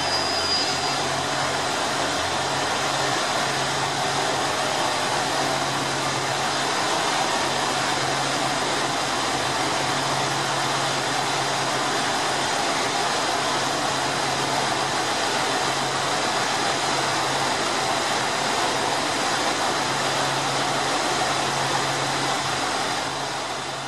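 KiHa 189 diesel railcar standing with its engines idling: a steady mechanical drone with a low hum that fades in and out.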